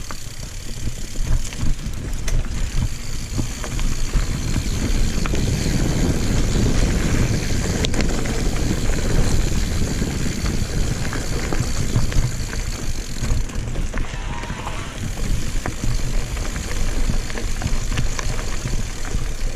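Mountain bike riding over a singletrack trail: a steady low rumble of tyres on rough ground, with frequent sharp knocks and rattles as the bike goes over bumps.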